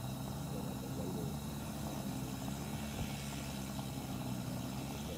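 A steady low mechanical hum made of several even low tones, like an engine running at idle, holding at one level throughout.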